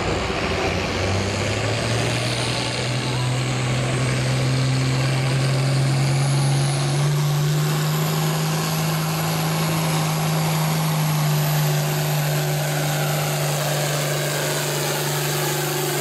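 International 1066 farm tractor's diesel engine running hard under load while pulling a weight-transfer sled. The engine note climbs over the first few seconds and then holds steady, with a thin high whine rising above it.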